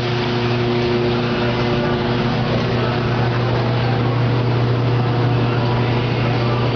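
Semi-automatic water-jug washing and sterilizing machine running steadily: a strong even motor hum over a rushing hiss.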